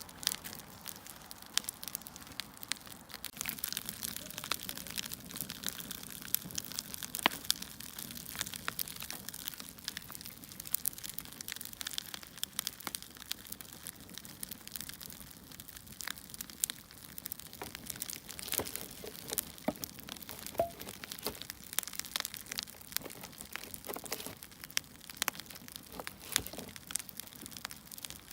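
Firewood burning, crackling with irregular sharp pops and snaps over a steady hiss.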